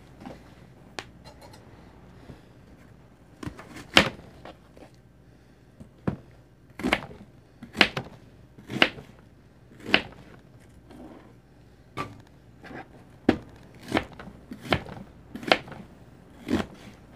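Kitchen knife slicing through an onion and knocking on a cutting board, about a dozen separate unhurried cuts roughly a second apart.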